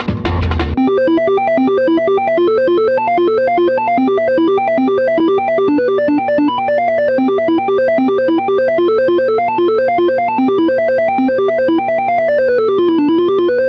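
Music: a fast synthesizer arpeggio of single notes climbing and falling over a held low drone, after a brief drum-heavy ending in the first second. Near the end the notes sweep down low, then the music cuts off suddenly.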